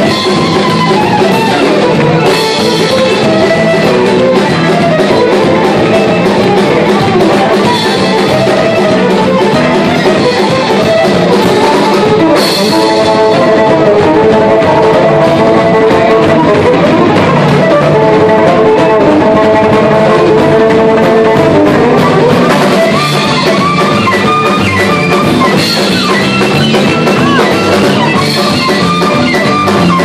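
A live band playing loudly: fiddle, drum kit and electric guitar, with long held notes in the middle.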